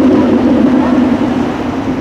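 Sports car engine running with a steady low note that fades away from about one and a half seconds in.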